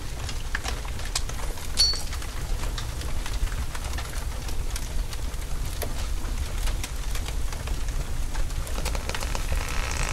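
Sound-effect ambience: a steady low rumble under faint scattered crackles and ticks, with one brief high chirp about two seconds in.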